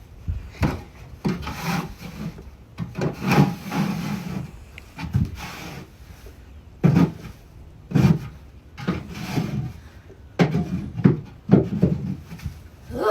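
Repeated scraping strokes of a hand tool scraping caked droppings and old bedding off a chicken coop floor, coming in an irregular run about once a second.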